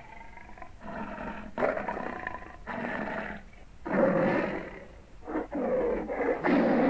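Vintage dinosaur roar sound effect for a Megalosaurus: a series of about five roars, each around a second long with short breaks between them, the loudest starting about four seconds in.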